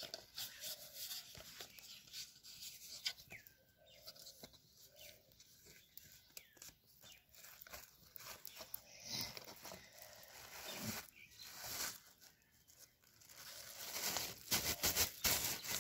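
Irregular crackles, scrapes and rustles as a thin stick is worked in a small wood fire in a mud hearth, getting louder near the end.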